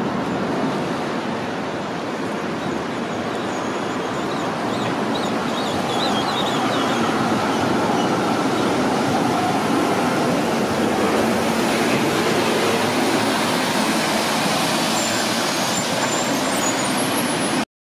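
Zurich Tram 2000 tram approaching and rolling past close by on street rails, a steady running rumble that grows louder as it draws alongside, mixed with street traffic including a heavy truck. The sound cuts off abruptly near the end.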